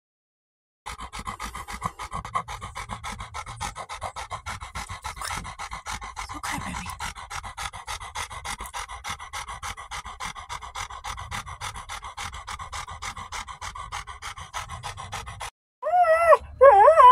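A dog in the midst of repeated seizures panting fast and hard without a break. After a short cut near the end, loud wavering whining cries follow.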